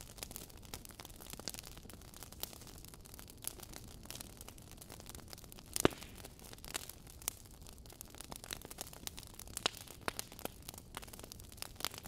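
Wood fire crackling in a fireplace: irregular sharp pops and snaps over a low steady hiss of burning logs, with one much louder pop about six seconds in.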